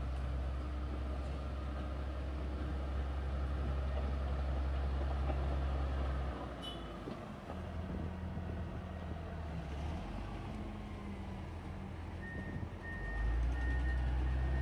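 Heavy diesel engine of a Komatsu motor grader running with a deep steady drone, its pitch shifting about six seconds in and growing louder again near the end. A faint high beeping comes in near the end.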